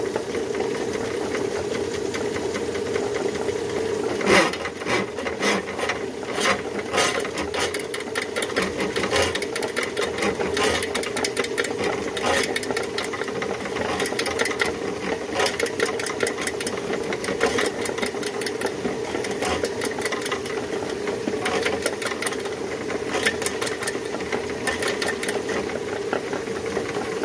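Powered drain snake running, its motor humming steadily as the coiled steel cable spins inside a plastic kitchen sink drain pipe to clear a clog. The cable rattles and clatters against the pipe fitting in bursts from about four seconds in until about fifteen seconds, and again briefly near the end.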